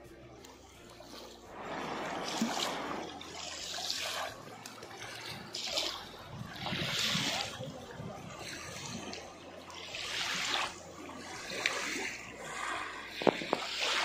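Small river waves lapping and splashing onto a sandy bank, coming in repeated swells every second or two, with a couple of sharp taps near the end.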